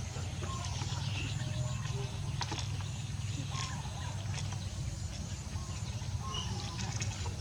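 Outdoor ambience: a steady low rumble with scattered short, faint bird-like chirps and a few light clicks.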